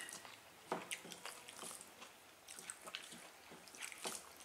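Faint eating sounds: chewing and lip smacks, with scattered soft clicks of fingers working rice and fish on metal plates.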